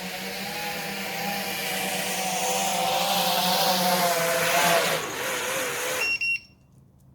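FPV quadcopter with 3D-printed ducted 5-inch propellers, its motors whining and growing louder as it comes back in. Near the end the pitch wavers and drops, and the motors cut off suddenly as it lands.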